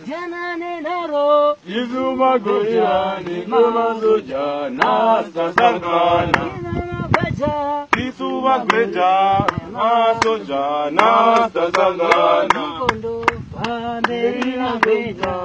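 A group of men chanting a song together, with sharp claps in a fairly even rhythm joining in about four seconds in and coming more often towards the end.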